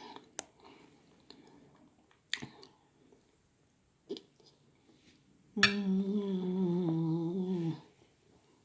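A person eating dessert: a few sharp mouth and utensil clicks, then a drawn-out hummed "mmm" lasting about two seconds in the second half.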